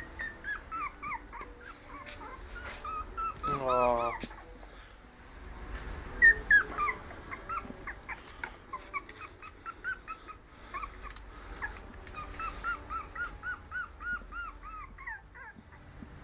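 Two-to-three-week-old Maltese–Jack Russell cross puppies whimpering and squeaking: many short, high-pitched cries, one longer, lower cry about four seconds in, and a quick run of cries near the end.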